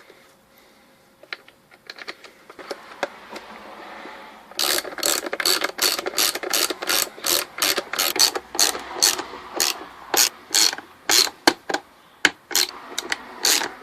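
Ratchet clicking in a steady run of sharp strokes, about three a second, starting about four and a half seconds in after a few faint clicks.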